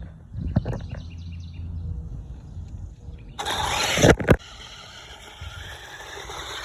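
New Bright Polaris toy RC car running: its motor and wheels give a low rumble with a few knocks, then a loud rush about three and a half seconds in that ends in two sharp knocks, then a steadier whirring run.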